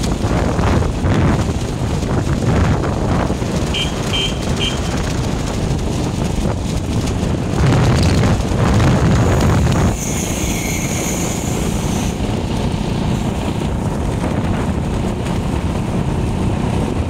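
Wind rushing over the microphone of a moving motorbike, with road and traffic noise from a wet street under it. About four seconds in come three short high beeps.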